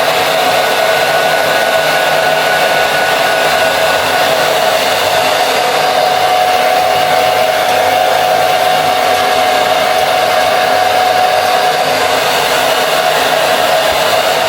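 Hair dryer blowing steadily with a whining tone, drying wig adhesive spray on the lace; it switches off just after the end.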